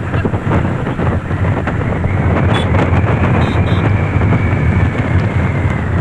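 Steady wind rush on the microphone of a moving motorcycle, with engine and road noise underneath.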